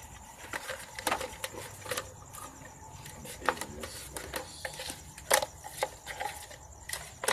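Scattered light clicks and knocks from hands handling car parts and a roll of gasket material, with the sharpest knock about five seconds in.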